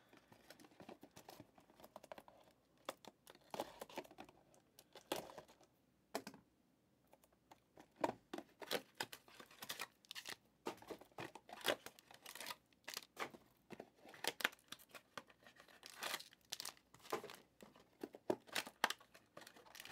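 Plastic trading-card pack wrappers being torn open and crinkled by hand in quick, irregular rips and rustles, with a brief lull about six seconds in.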